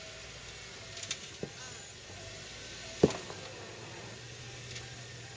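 Jeep Wrangler JKU engine running low and steady as it crawls slowly over a rocky dirt trail, with a few sharp knocks, the loudest about three seconds in.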